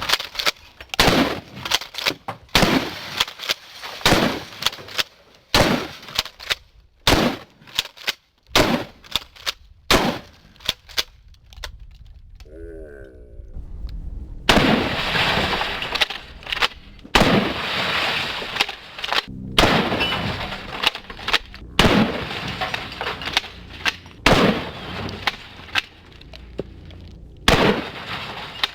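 Rapid string of gunshots, one sharp crack about every half second to second. From about halfway through, the shots come with longer ringing tails.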